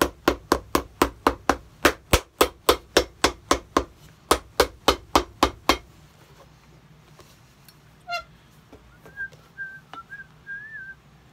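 Cobbler's hammer pounding a newly fitted heel block onto a dress shoe held on a shoe last, in quick, even blows of about five a second that stop a little before halfway. Near the end, someone whistles a few short notes.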